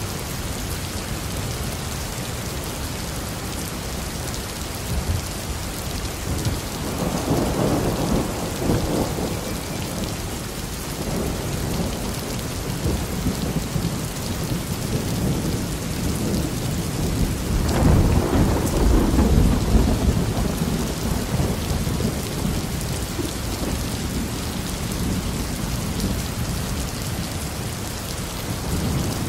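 Steady rain falling, with two rolls of thunder rumbling through it: one about seven seconds in and a louder one about eighteen seconds in.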